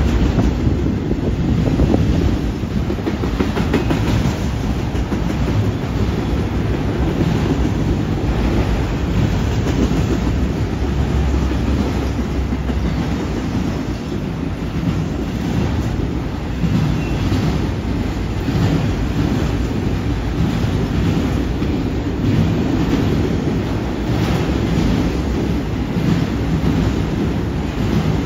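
Freight train of autorack cars rolling past: a steady heavy rumble of steel wheels on the rails, with repeated clickety-clack as the wheel sets cross rail joints.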